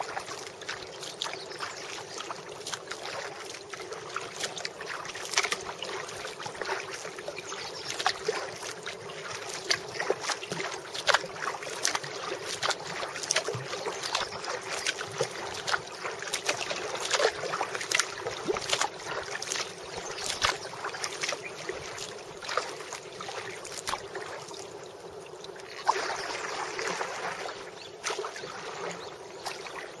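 Light rain pattering on an inflatable kayak and the river surface: a dense, irregular run of small ticks and taps.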